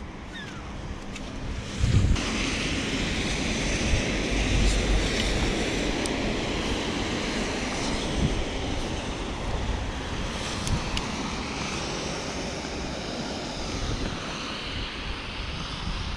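Wind buffeting the microphone: a gusty low rumble under a steady hiss, which gets suddenly louder about two seconds in.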